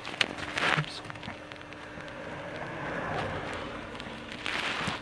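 Typing on a laptop keyboard: quick, irregular key clicks.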